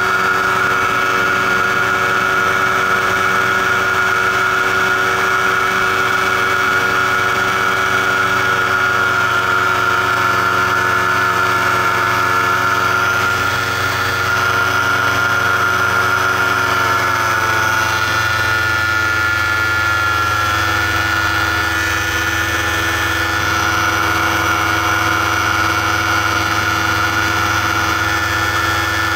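Paramotor engine and propeller running steadily in flight, heard from the pilot's harness; its pitch drops slightly about halfway through and then holds at the lower note.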